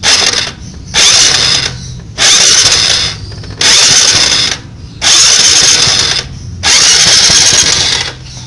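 Honda Supra X125's electric starter cranking the engine six times in short bursts, turning it over without firing because the spark plug is out. The cranking pushes the carbon-cleaner fluid and the loosened combustion-chamber deposits out through the plug hole.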